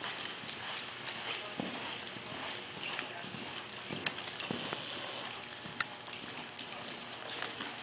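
Hoofbeats of a ridden American Paint Horse mare on the sand footing of an indoor arena: an uneven run of soft thuds and clicks, first at a lope, then in a slower gait near the end.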